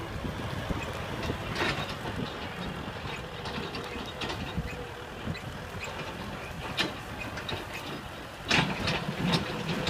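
Tractor engine running steadily as it moves along a rough dirt track, with occasional sharp clanks and rattles, the loudest about eight and a half seconds in.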